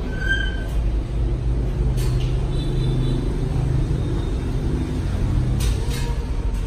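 Low rumble of a motor vehicle's engine, swelling to a steady hum for a few seconds in the middle, with a few faint clicks.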